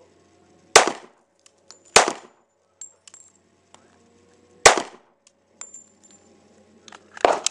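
Four shots from a Springfield Armory XD semi-automatic pistol, unevenly spaced about one to three seconds apart, each with a short ringing tail, with faint light clicks between shots.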